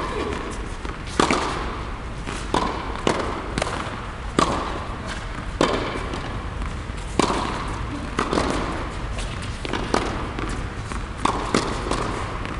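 Tennis rally on an indoor hard court: sharp pops of racquets striking the ball and the ball bouncing, about one every second, each echoing in the large hall.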